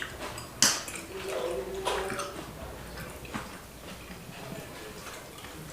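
Eating noises from a meal of chicken curry and rice: scattered clicks and taps against plates, with one sharp click about half a second in and another near two seconds.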